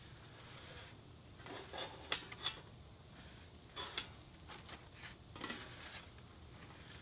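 Stainless steel stockpot being turned and marked against a metal speed square: faint scraping and rubbing of metal, with a few light metal clicks, the sharpest two a bit past two seconds in.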